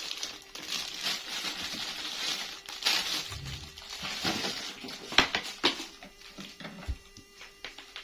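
Plastic packaging rustling and crinkling while toys are handled and unpacked, with a few sharp plastic clicks and knocks about five seconds in.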